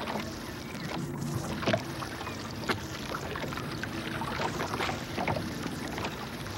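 A small open fishing boat at sea: a steady low motor hum under the wash of water and wind on the microphone, with a few sharp knocks as the trawl line is hauled over the gunwale.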